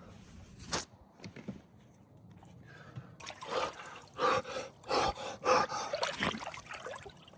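Cold plunge water in an ice barrel, sloshing and trickling. From about three seconds in come repeated sharp, gasping breaths.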